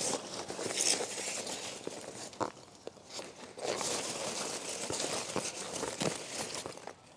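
Foam packing peanuts rustling and crunching as hands dig and push through them in a cardboard box, in uneven bursts with a quieter spell a little before the middle.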